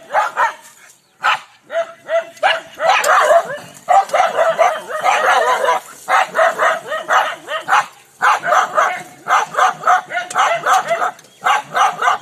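Village dog barking angrily in rapid runs of several barks a second, with short pauses between the runs.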